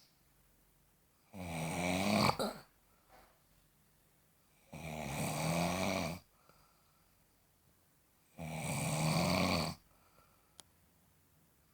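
Snoring: three drawn-out snores, one every three and a half seconds or so, with quiet breaths between.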